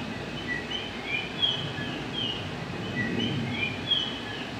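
Birds chirping: short, high, falling notes repeating every half second or so, over a steady low hum.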